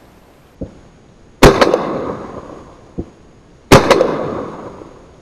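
Two close shotgun shots about two seconds apart, each followed by a rolling echo that dies away over a second or so. Fainter, duller shots from farther off pop twice in between.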